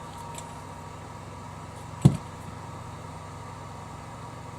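Steady electrical hum, with one sharp clunk about two seconds in.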